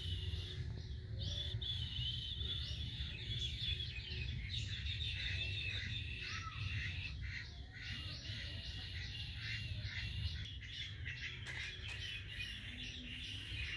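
Many small birds chirping in quick succession, a steady chatter of short high calls over a low steady rumble.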